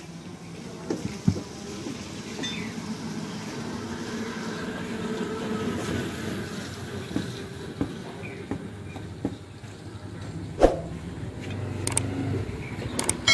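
A butcher's knife working raw beef on a wooden stump block, with a few sharp knocks, the loudest about ten and a half seconds in, over a steady low background rumble.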